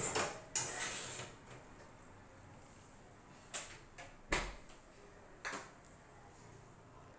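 Metal tongs clattering and scraping on a metal oven tray as onions are turned, then the oven door shutting with a low thud about four seconds in, with a few lighter clinks around it.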